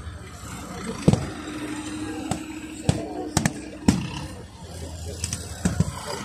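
Scattered blank gunfire from small arms: about nine sharp shots at irregular intervals, the loudest about a second in, over a steady low rumble.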